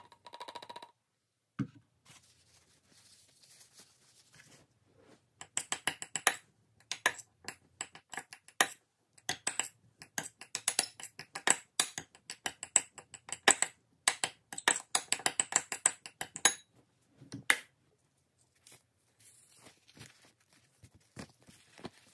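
Metal spoon clinking and scraping against a ceramic bowl while mixing oil into cooked rice: a quick, uneven run of clicks that lasts about ten seconds, then one more click.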